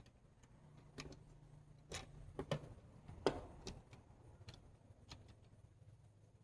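Light clicks and taps of plastic case walls being handled and fitted together, about half a dozen scattered knocks with the sharpest a little past three seconds in, over a faint low hum.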